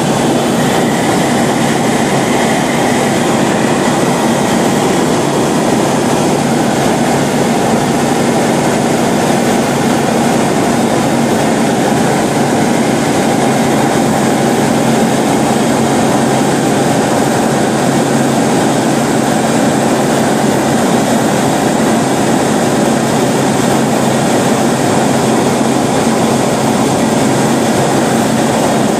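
Roland Z602 light aircraft's piston engine and propeller droning steadily in flight, heard loud inside the cabin with a constant hum and rushing air noise.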